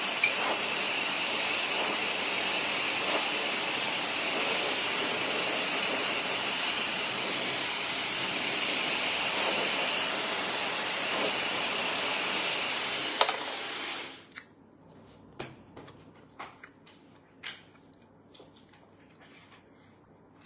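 Handheld hair dryer running with a steady hiss as hair is blow-dried, then switched off suddenly about fourteen seconds in. After it, only a few faint short clicks.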